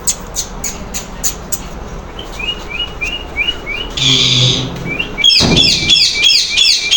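Pet parrot calling: a row of short high chirps, then a harsh screech about four seconds in, then a quick run of chirps near the end.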